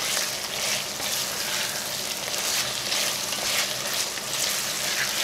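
Diced venison sizzling as it fries on high heat in an enamelled cast-iron pot, stirred with a wooden spatula. The steady hiss swells and eases in waves, the sound of the meat being seared to seal it.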